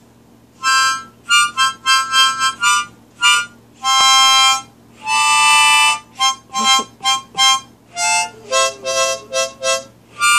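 A harmonica played in short bursts of chords and a few longer held notes, starting about a second in; the notes drop lower near the end.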